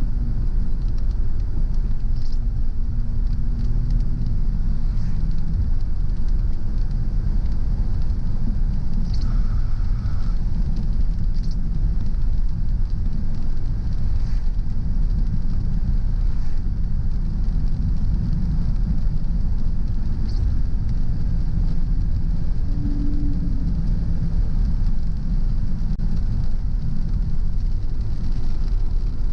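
A car driving: a steady low rumble of engine and tyres on the road, with faint light ticks every few seconds.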